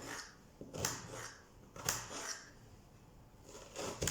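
Kitchen knife dicing onion: a handful of separate short chops with pauses between them.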